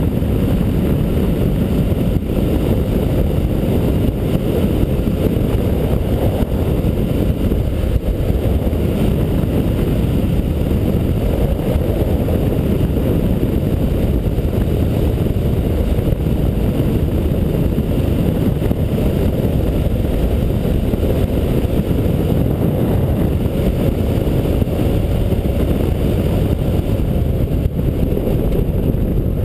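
Motorcycle riding along at a steady speed, heard from a camera mounted on the bike: a steady low rumble of engine and wind on the microphone.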